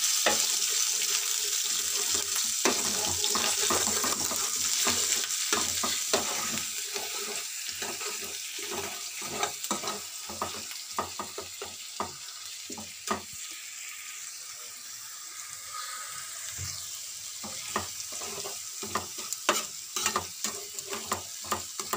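Ginger, green chili and poppy-seed paste sizzling in hot oil in a frying pan, with a metal spatula scraping and clicking against the pan as it is stirred. The paste is being fried until the raw smell of the ginger goes. The sizzle is loudest at first and dies down over the first dozen seconds, while the spatula strokes carry on throughout.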